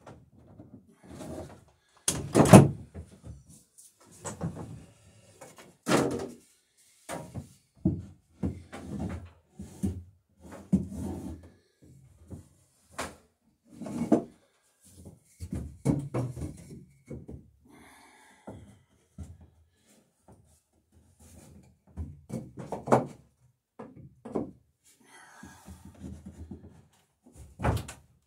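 Irregular wooden knocks and thuds as clamps, tools and lengths of wood are handled while a glued rail is fitted and clamped to a wooden dory's hull. The loudest knock comes about two and a half seconds in.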